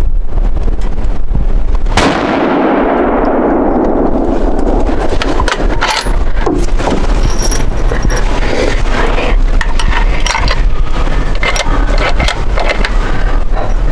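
A single deer-rifle shot about two seconds in, its report rolling away and fading over a few seconds, over steady wind rumble on the microphone.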